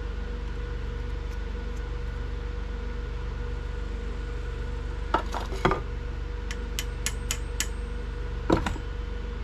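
Light clinks and knocks of small hard objects being handled and set down, over a steady hum. There are a few knocks about halfway through, then a quick run of about five thin clicks, and one more knock near the end.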